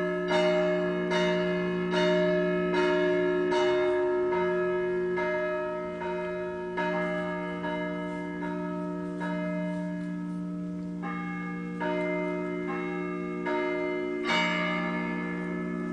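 Orthodox church bells being rung: small bells struck in a quick repeating pattern, about one to two strokes a second, over the lasting hum of larger bells. The pattern changes about eleven seconds in, and a heavier stroke rings out near the end.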